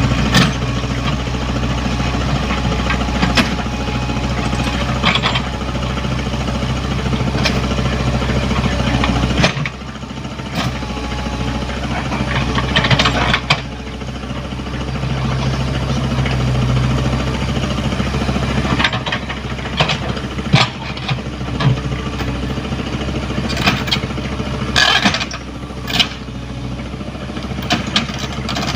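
Komatsu PC75UU mini excavator's diesel engine running, its note dropping and changing twice as the load shifts, with scattered metal clanks and knocks.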